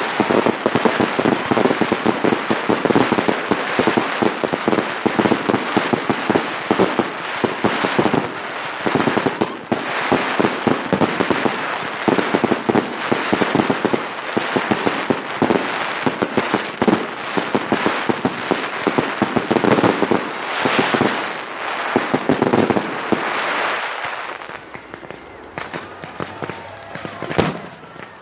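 Fireworks display: a dense, continuous barrage of bangs and crackling bursts that thins out about three-quarters of the way through, with one sharp bang near the end.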